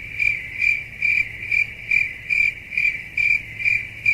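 Cricket chirping: one steady high-pitched trill pulsing evenly about three times a second.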